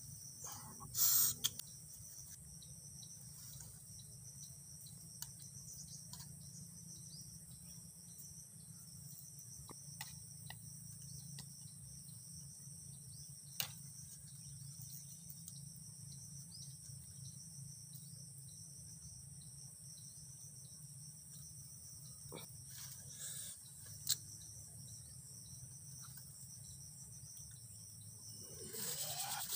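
Steady chirring of crickets and other insects, several high pitches held constant, with a few faint clicks and taps and one short louder rustle about a second in.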